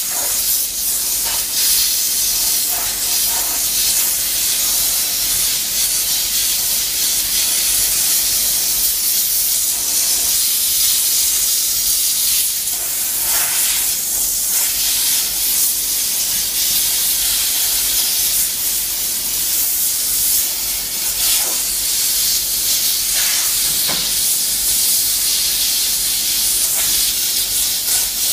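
Commercial steam cleaner's wand jetting steam onto the burner grates of a gas range: a steady hiss.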